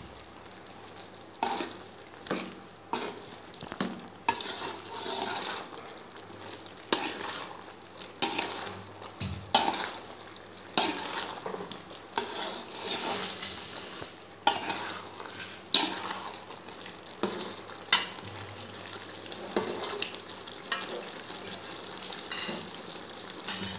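A metal spoon stirring vegetables in thick sambar masala gravy in a metal pot, scraping against the pot in strokes about every second or so, while the gravy sizzles underneath.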